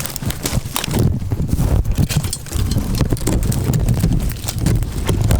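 Footsteps and crackling brush as someone pushes through briars and brambles, an uneven run of knocks and rustles over a low rumble.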